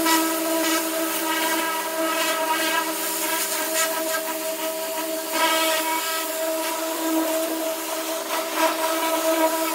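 Pressure washer jet hissing as it blasts softened paint off the bare steel of a chemically stripped car body, over a steady whine from the machine. The spray surges briefly a few times.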